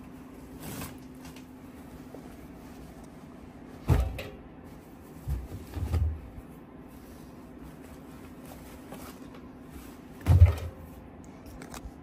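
Clunks and knocks of a Miele W5877 washing machine being opened and shut. There is a sharp knock about four seconds in, two duller clunks soon after, and the loudest thump near the end, over a steady low hum.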